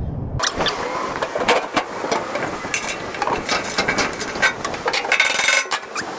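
Irregular knocks, clatter and scraping of hands-on work on truck-bed hardware, with a short rasping noise about five seconds in.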